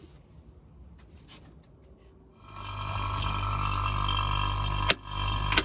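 Light handling clicks, then a JB Industries refrigeration vacuum pump starts running about two and a half seconds in with a loud, steady hum, pulling a vacuum on the mini split's line set through its yellow hose. Two sharp clicks near the end.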